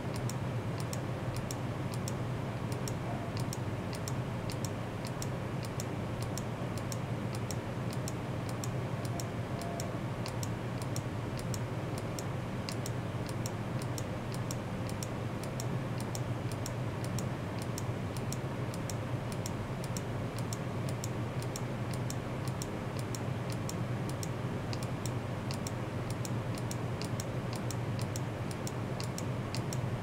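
A steady low hum under a fast, even ticking, about three ticks a second.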